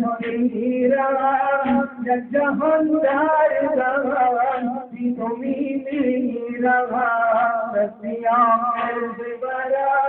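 A man chanting a noha, a Shia mourning lament, without instruments, holding long wavering notes between short breaths.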